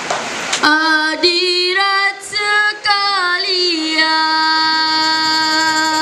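A child's solo voice singing the opening Malay greeting to the audience ("hadirat"). The line winds up and down in pitch, then settles about four seconds in on one long held note.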